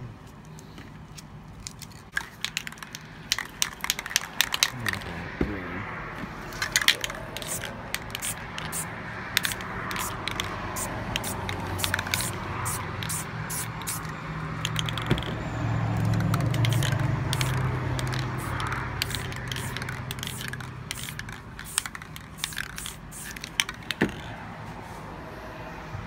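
Aerosol spray paint cans hissing in bursts, with many sharp clicks and crackles throughout. A low hum swells and fades around the middle.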